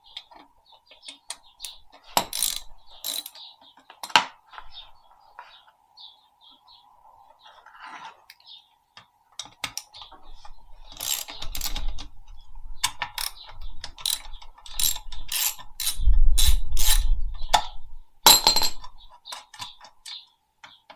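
Hand tools at work on engine bolts: a ratchet wrench clicking and metal clinking in irregular sharp bursts, sparse at first and much busier in the second half.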